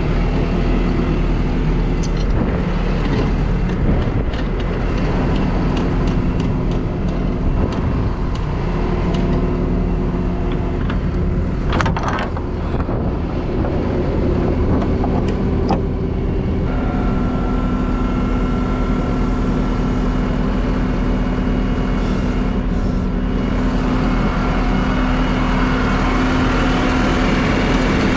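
Flatbed tow truck's engine running steadily at idle, with scattered metallic clicks and clinks during the first half as the winch cable and hook are handled. A steady higher whine joins a little past the middle.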